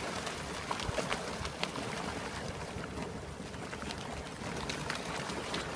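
Water lapping and sloshing, with scattered small clicks and knocks.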